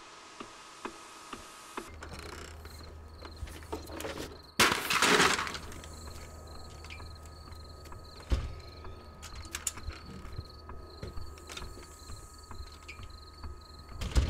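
A clock ticking about twice a second, then a low hum and insects chirping steadily. About five seconds in comes a loud crash lasting about a second, followed a few seconds later by a sharp thud and by a few knocks near the end.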